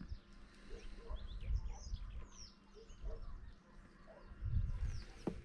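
Small birds in the reeds chirping and calling over and over in short, high, quick notes, with a low rumble twice, near the middle and near the end.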